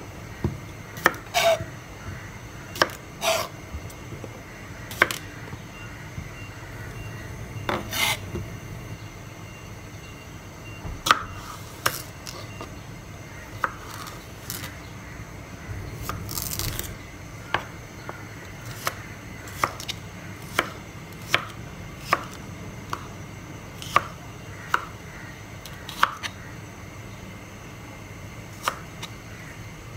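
Kitchen knife chopping a cucumber on a plastic cutting board: sharp, irregular chops about once a second, with a few longer strokes among them.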